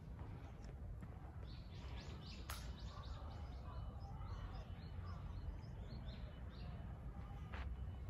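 Small birds chirping, a quick run of short high calls over several seconds, over a low steady rumble, with one sharp click about two and a half seconds in.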